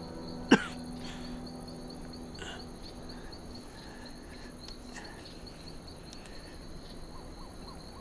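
Crickets chirping steadily in a fast, even trill, with a man's single sharp cough about half a second in.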